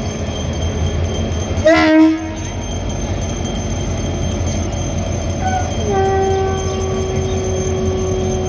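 Locomotive air horn sounding for a flag-off: a short, loud blast about two seconds in, then a longer, quieter steady horn note from about six seconds in. A low steady hum runs underneath.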